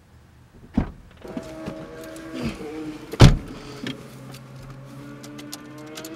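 Car door opened with a knock, someone getting in, then the door shut with a heavy thud about three seconds in. A steady low hum follows.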